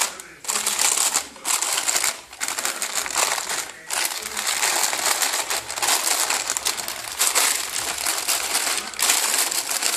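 Thin plastic carrier bag crinkling as a hand rustles and pats it, in irregular spells with brief pauses in the first few seconds, then nearly without a break.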